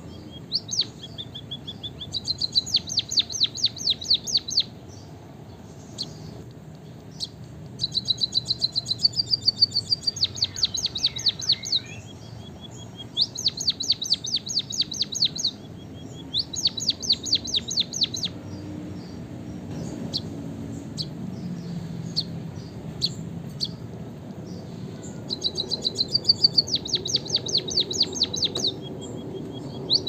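White-headed munia singing: several bouts of two to four seconds, each a fast run of high clicking notes over a thin, drawn-out high whine, with short pauses between bouts.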